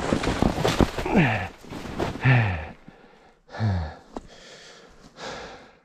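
A man breathing hard, with several heavy voiced sighs or grunts that drop in pitch, about one a second, while dry brush crackles and twigs snap around him. The crackling stops a little before halfway, leaving only his breathing.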